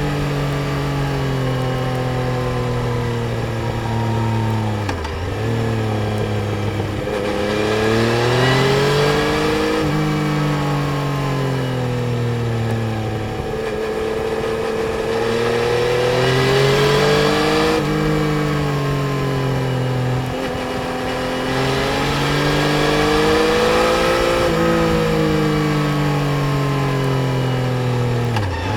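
Yamaha Tracer 900 GT's 847 cc inline-three engine under way, heard onboard. Its pitch climbs under acceleration, then drops sharply at gear changes about 5, 10, 18 and 28 seconds in, and eases down again when the throttle is rolled off.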